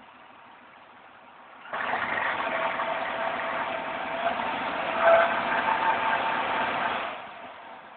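2005 Pontiac Grand Prix GTP's supercharged 3.8-litre V6 idling quietly, then revved for about five seconds from about two seconds in. The revving brings a much louder noise with steady tones that shift in pitch near the middle, before it drops back to idle. This is the strange noise that comes only at certain RPMs after a long drive and not at idle; it persists with the supercharger belt removed, so it is not the supercharger coupler.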